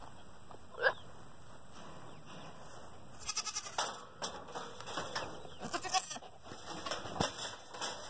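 Billy goat in rut making odd courting noises: a short bleat-like call about a second in, then a rapid string of short sputtering pulses and scattered brief grunts and calls.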